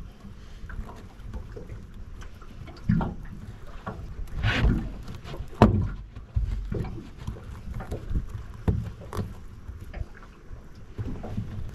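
Hands tying up a live mud crab with twine on an aluminium boat deck: irregular rustling, scraping and small knocks, with a sharp knock about halfway through.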